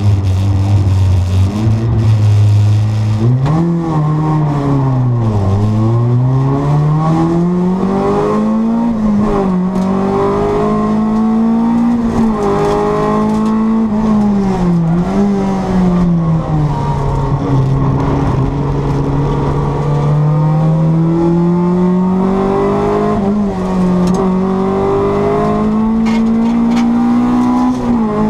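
Honda Civic 1.6-litre four-cylinder engine driven hard: a steady low note for the first few seconds, then revs climbing through the gears and dropping sharply at each shift or lift, over and over.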